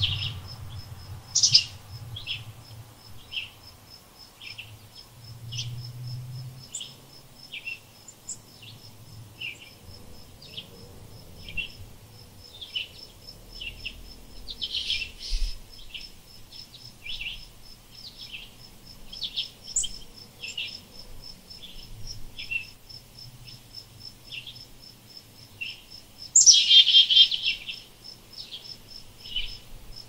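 Small wild birds chirping in short, repeated notes, with louder chattering calls three times (about a second and a half in, midway, and near the end), over a steady, fast-pulsing high insect trill.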